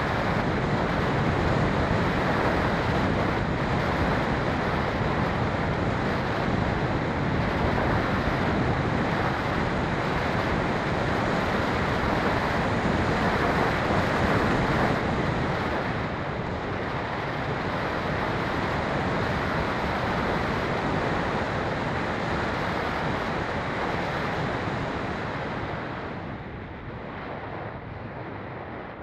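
Rushing wind noise over the microphone of a camera mounted on a flying Phoenix 2400 radio-controlled glider: a steady roar of airflow that eases a little about halfway through and drops further near the end.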